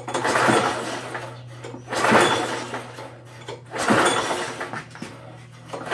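Pull-starting a Poulan Pro push mower's engine: a rasping recoil-starter pull with the engine turning over, repeated about every two seconds, three times with a fourth starting at the end. The engine never fires, even on fuel vapour with a shot of starting ether.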